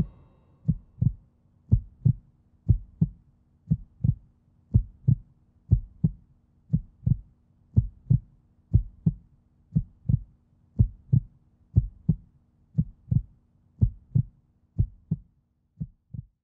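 Heartbeat sound effect: a low double thump, lub-dub, repeating steadily about once a second.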